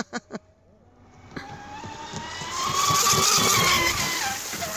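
RC speedboat's motor whining as it comes in, growing louder with the hiss of its spray as it passes close, loudest about three seconds in, then its pitch drops as it goes by.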